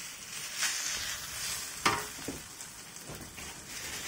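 Kway teow and yellow noodles sizzling in a stainless steel wok while a wooden spatula stirs and scrapes them, with small clicks and one sharp click about two seconds in.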